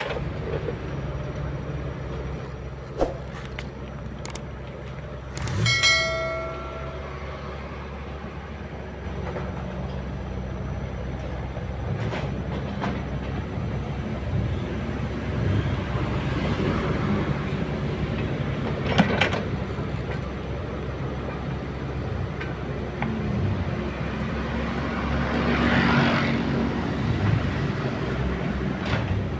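Excavator diesel engine running steadily, with occasional sharp clanks and knocks from the machine at work. There is a brief high tone about six seconds in and a swell of scraping noise near the end.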